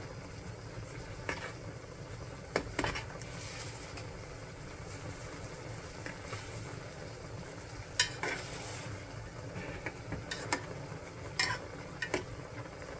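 Instant jjajang noodles being stirred in a pot, with a steady cooking hiss and a utensil clicking sharply against the pot now and then.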